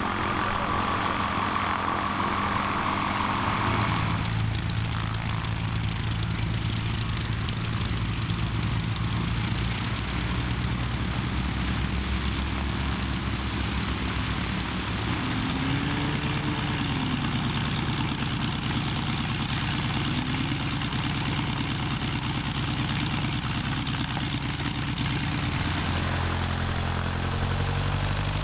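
Light-aircraft piston engines and propellers running at low power on the ground, idling and taxiing. The engine note changes abruptly about four seconds in and again near the end, as a different aircraft is heard.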